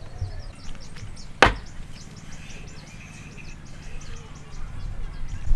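A single sharp knock of wood being struck, about one and a half seconds in, over faint high chirping in the background.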